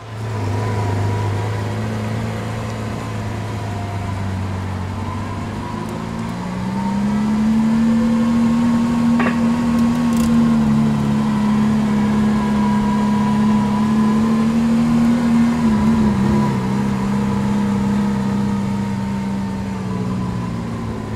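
Lamborghini Sián FKP 37's naturally aspirated V12 running stationary at idle. About six seconds in the engine speed rises to a higher steady hold, then eases down a step near the end.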